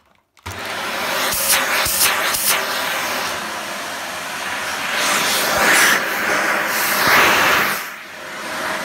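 Dyson DC40 upright vacuum cleaner switched on about half a second in and running steadily as it is pushed over the floor, its suction working with a newly fitted hose. The motor sound swells twice and dips near the end.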